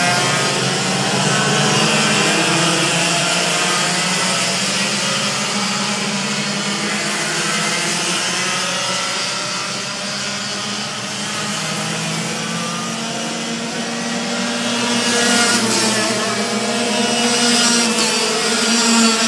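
A pack of racing kart engines buzzing and revving together, their pitches rising and falling as the karts brake and accelerate through the corners. Louder in the last few seconds as the karts come closer.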